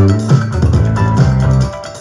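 Music with a plucked bass line, guitar and drums, played back through a home-built Bluetooth speaker cabinet driven by a mini amplifier as a listening test.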